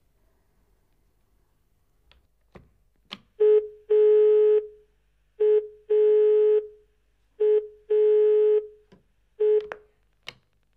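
A telephone ringing tone: a steady electronic tone in a short pulse followed by a longer one, repeating about every two seconds, four times, with the last cut short by a click. A few sharp clicks come just before the ringing starts.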